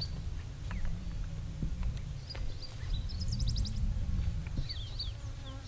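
Outdoor bush ambience: short, high, downward chirps come in small clusters, with a quick trill about halfway through, over a steady low rumble.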